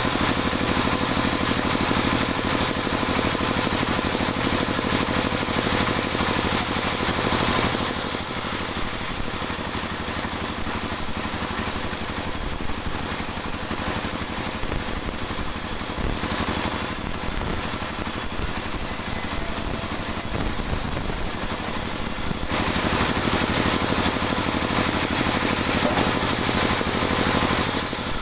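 Band saw running steadily as it rips a dry teak offcut lengthwise into a 2 cm board. The sound turns duller, with less hiss, from about eight seconds in until about twenty-two seconds in.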